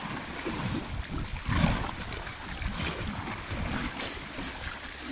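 Horses wading through shallow seawater, their legs splashing steadily, with a slightly louder splash about one and a half seconds in. Wind rumbles on the microphone underneath.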